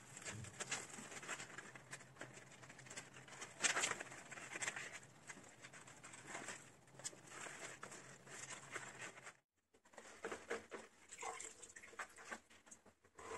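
Hands working soil loose from an aspidistra's roots: irregular soft rustling and crackling. It breaks off briefly about nine and a half seconds in.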